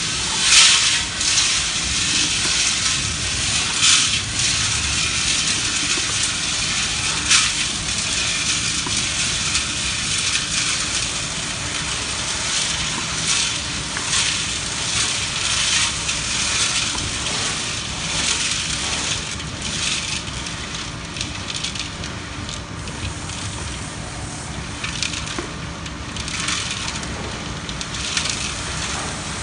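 A 70-litre tilting-drum concrete mixer running, driven by its 1 hp Mitsubishi electric motor, with a steady grinding rattle from the turning drum. There are a few louder clatters: about half a second in, around four seconds and around seven seconds.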